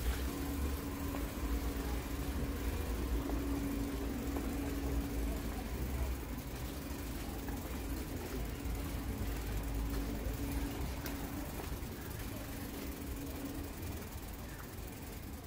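Street ambience with a steady motor hum and low rumble, typical of an idling engine. The hum stops near the end, and the whole sound fades.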